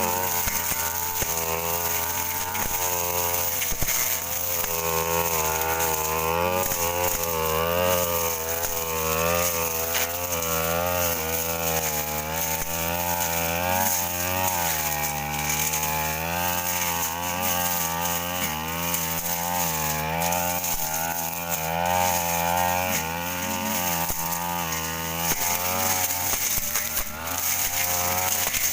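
Stihl two-stroke brush cutter with a Tanika blade running at high revs, its engine pitch dipping and rising every second or two as the blade cuts through dense undergrowth.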